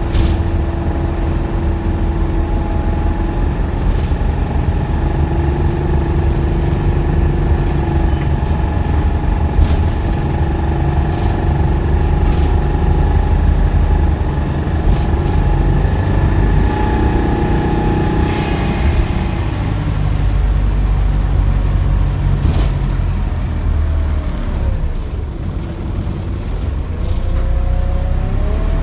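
Optare Solo bus's engine and drivetrain running, heard from inside the bus: a steady low rumble with a whine over it that stops about two-thirds of the way through, a short burst of hiss, then a whine rising in pitch near the end. The bus sounds ill to its passenger-recordist, the day after the same bus broke down.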